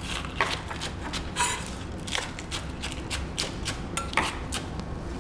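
Kitchen utensils clicking and tapping against a bowl and dishes in irregular light strokes, about three a second, over a steady low hum.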